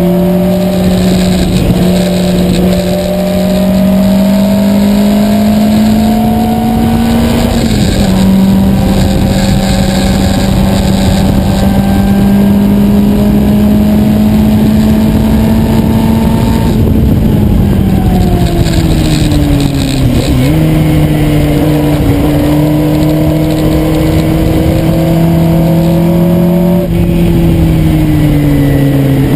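Onboard sound of a Lola Mk1's Coventry Climax four-cylinder engine pulling at steady part-throttle, with wind and road rush over the open cockpit. The engine note steps down at a gear change about a quarter of the way in and again near the end, and falls away over a few seconds midway as the car slows, with a quick dip and lift in pitch at the bottom of that fall.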